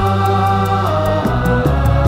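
Instrumental song intro: sustained chords over a bass line that moves to new notes about a second in, with a quick, light ticking percussion, about five ticks a second.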